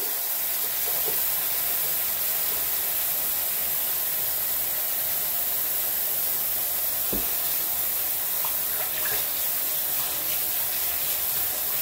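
Kitchen tap running steadily, its stream splashing into a stainless steel sink basin as it fills with lukewarm water. A brief knock about seven seconds in.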